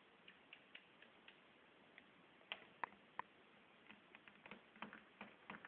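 Faint, irregular small plastic clicks from a Miele appliance's rotary program dial being turned and its push buttons being pressed. The three sharpest clicks come about halfway through, and a quicker run of lighter ones follows near the end.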